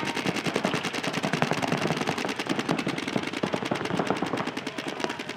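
Several tournament paintball markers firing rapid streams of shots at once, a dense, unbroken crackle of pops.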